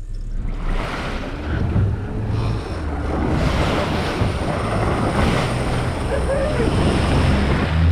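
Water rushing and splashing in the wake of a moving boat, with wind buffeting the microphone and a low engine drone underneath.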